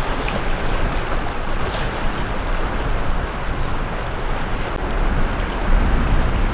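Sea waves washing onto the beach, a steady rushing surf, with wind buffeting the microphone in a strong low rumble.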